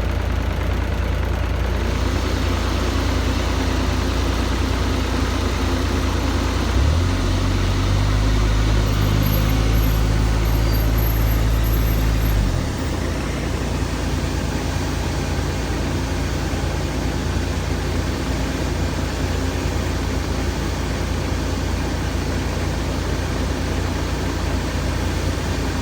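Heavy diesel engine running. About seven seconds in it revs up and holds higher for about five seconds, then drops back to a lower, steady run.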